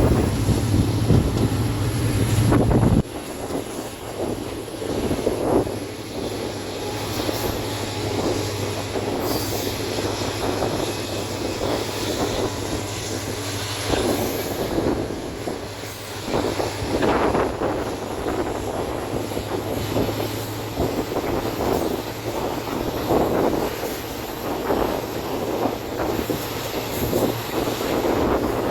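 A moving passenger train heard from one of its coaches: a steady rolling rumble and wheel noise on the rails, with irregular knocks from the track. A loud low hum during the first three seconds cuts off suddenly; a fainter hum runs on for a while after.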